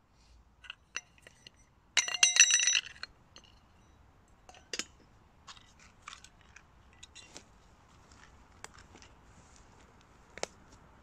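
Hard metal items clinking and rattling together, with a loud ringing rattle lasting about a second, about two seconds in. Scattered light clicks and knocks follow.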